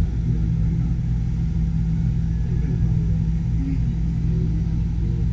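Steady low hum and rumble inside an enclosed Ferris-wheel gondola as it turns, with faint muffled voices.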